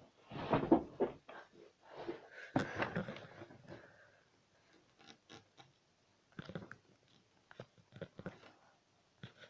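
Rustling and bumping of a person scrambling about on a bed for the first few seconds, then scattered clicks and knocks of the camera being handled.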